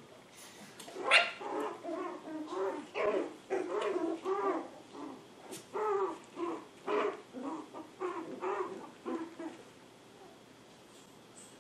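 Seven-week-old poodle puppy barking in a string of short, high-pitched yaps and whines, loudest about a second in, stopping about two seconds before the end.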